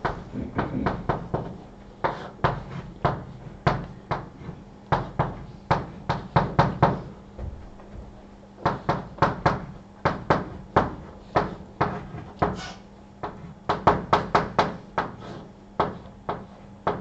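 Chalk tapping against a blackboard while an equation is written: quick, irregular clicks in clusters, with a short pause about seven seconds in.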